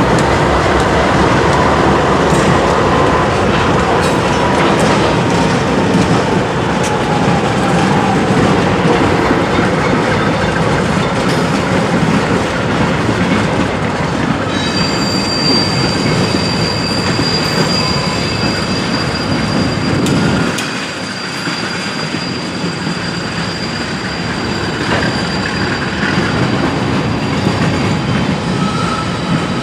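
Mixed freight train rolling past on the rails in a steady loud rumble, with a faint falling whine early on. A high, steady wheel squeal sets in about halfway through, and the low rumble dips briefly about two-thirds of the way.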